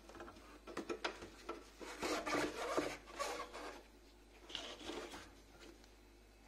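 Irregular scratchy rubbing and scraping with small clicks, in two spells: a longer, louder one from about a second in to three and a half seconds, and a shorter one around five seconds.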